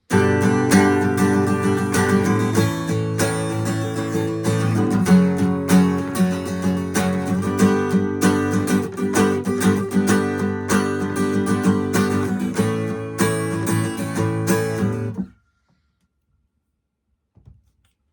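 Guitar music with plucked and strummed notes starts abruptly, plays for about fifteen seconds, then cuts off suddenly. Near the end there is a single faint click.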